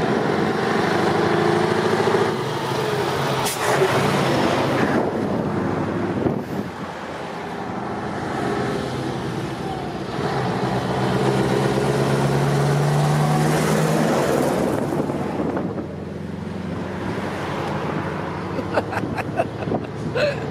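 Classic Scania V8 diesel truck engines running as the trucks drive by, an engine note swelling and rising slightly around the middle, with a few short sharp sounds in between.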